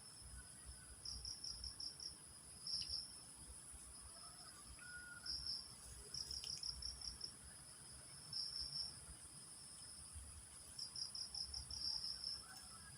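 Insects calling: a steady high buzz runs throughout, with short bursts of rapid chirps repeating every couple of seconds.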